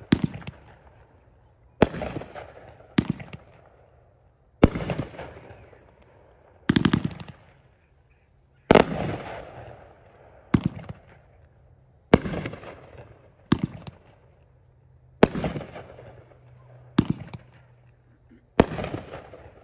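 Sky Bacon 'Hog Smash' 28-shot 500-gram fireworks cake firing shot after shot: about a dozen sharp bangs, one every one and a half to two seconds, each dying away in echo. A quick cluster of reports comes about seven seconds in.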